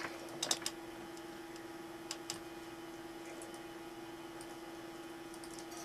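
Quiet room tone with a steady hum and a few small sharp clicks: a cluster in the first second and two more about two seconds in, then only faint ticks.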